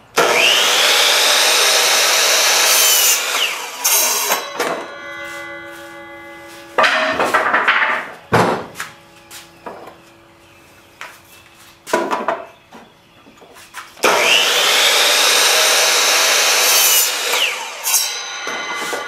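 Sliding compound miter saw cutting through a wooden board twice, near the start and again about 14 seconds in. Each time the motor spins up, the blade cuts, and the motor winds down. Between the two cuts there are shorter bursts and sharp knocks.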